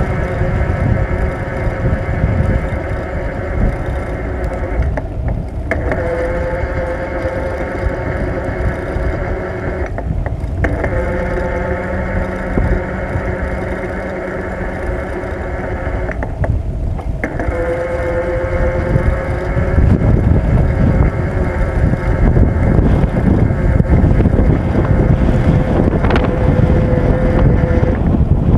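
Riding noise of a bicycle on an asphalt country road: wind buffeting the microphone and a rumble of road and tyres. Over it runs a steady pitched whine that cuts out briefly three times. The whole sound grows louder in the last third.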